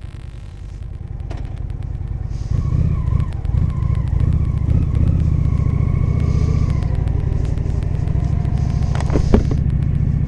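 Honda Shadow 750 Aero's V-twin engine pulling away, growing louder over the first two or three seconds and then running steadily under way. A couple of sharp clicks come near the end.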